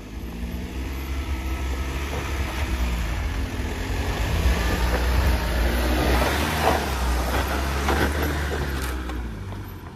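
A 4x4's engine pulling under load as it crawls over a rough off-road obstacle, growing louder towards the middle and easing off near the end. A rough scrabbling noise rises over it in the second half.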